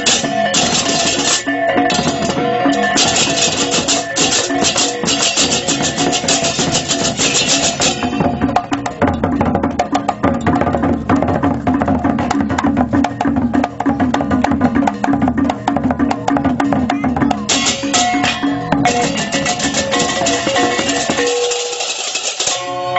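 Balinese balaganjur gamelan playing: many pairs of ceng-ceng kopyak hand cymbals clash in a fast, driving rhythm over drums and pitched gong tones. The cymbals fall back about eight seconds in, leaving mostly drumming. They return near the end.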